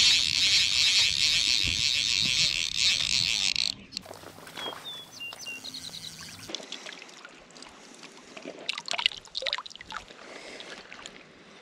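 Fly reel's drag buzzing in a loud, rapid high-pitched run for about four seconds as a hooked trout pulls line off the spool, cut off abruptly. Then quieter water splashing and dripping as the trout is handled in the shallows.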